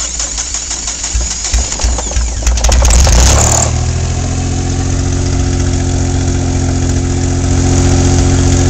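Suzuki G10 1.0L three-cylinder engine on a cold start: the electric starter cranks it for about three seconds, it catches and flares up, then settles into a steady idle.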